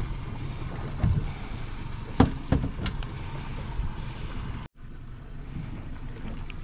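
Wind and water noise around a small fishing boat at sea, with a few sharp knocks between about one and three seconds in.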